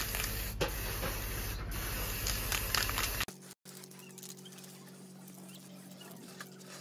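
Aerosol spray-paint can hissing steadily as it sprays a bare motorcycle frame; the hiss cuts off abruptly about three seconds in. A faint, steady low hum follows.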